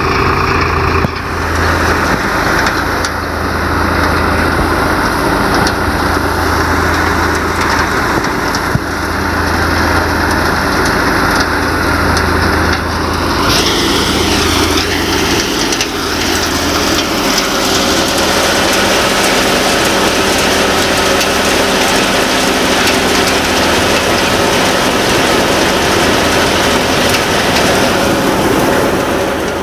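Sonalika DI 745 III diesel tractor running steadily under load, driving a threshing machine, with the thresher's drum and fan adding a dense, continuous rush. About halfway through the sound turns brighter and hissier.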